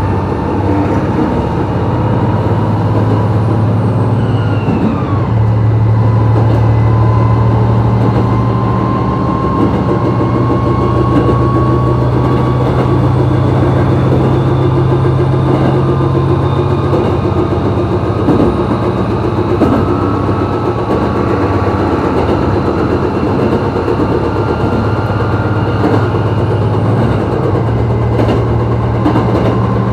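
ET122 diesel railcar's engine running as the train travels, a steady drone whose pitch and strength shift a little partway through, with running noise and occasional light clicks.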